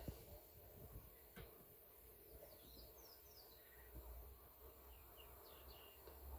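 Near silence outdoors, with faint bird chirps: a few short, quick, falling calls in the middle and again near the end.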